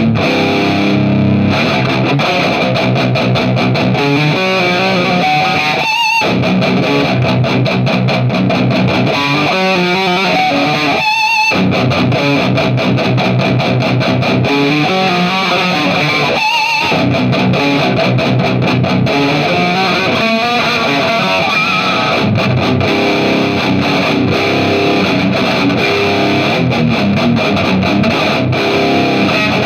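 Distorted electric guitar playing riffs through an effects unit, broken by a few very short pauses.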